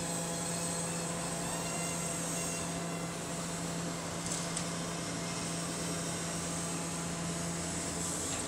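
Long-reach demolition excavator's engine running steadily, a constant hum, with a couple of faint clicks about four seconds in.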